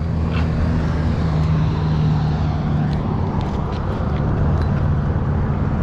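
A vehicle engine idling steadily close by, under a faint outdoor noise.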